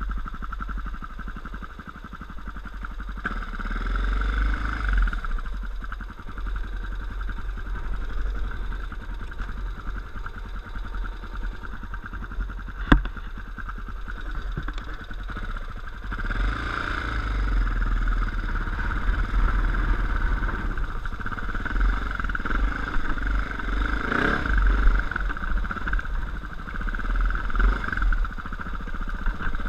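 Dirt bike engine running under way, its note swelling and easing with the throttle over a deep low rumble. A single sharp knock sounds about 13 seconds in.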